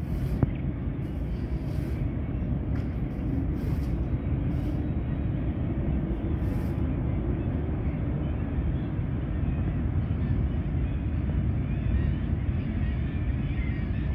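Distant freight train hauled by two Class 60 diesel locomotives crossing a steel rail bridge: a steady low rumble that holds unbroken throughout.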